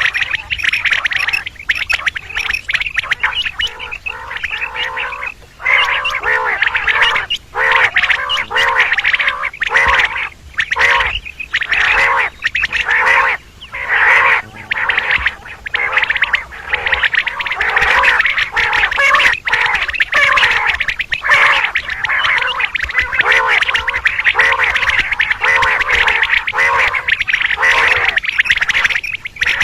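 Common quail calling, many calls overlapping in a dense, continuous chorus with only brief gaps.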